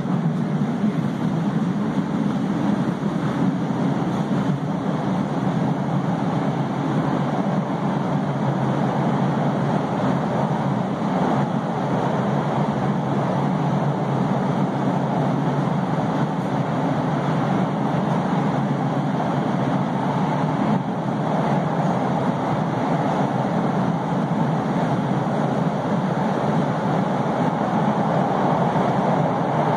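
Steady running noise of an MBTA Red Line 1900-series subway car in motion, heard inside the car: wheels on rail and traction running noise, growing a little louder near the end.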